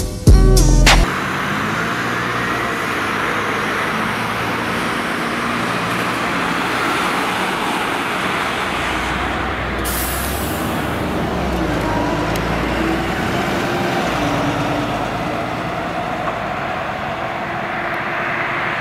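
Road traffic noise from an ambulance and cars on the road: a steady rush of engine and tyre sound, with a sudden high hiss about ten seconds in.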